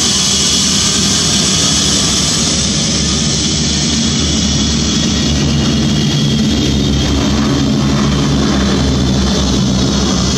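Airbus EC135 helicopter's twin turbines whining with the main rotor turning; partway through, this gives way to the four Wright Cyclone radial engines of a Boeing B-17 bomber at takeoff power, a low, steady drone.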